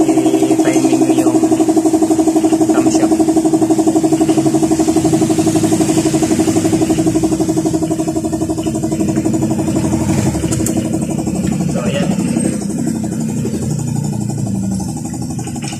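A motor running steadily, a strong pulsing hum that weakens after about eight seconds, with a few light clicks over it.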